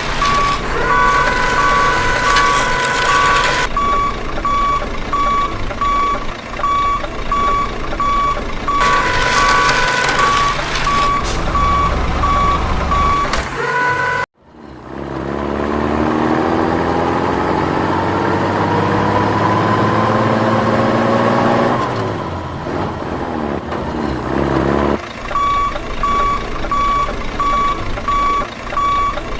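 Truck reversing alarm beeping steadily over a running engine. Near the middle it breaks off abruptly, and an engine revs up, rising in pitch for several seconds before easing off. Then the reversing beeps come back.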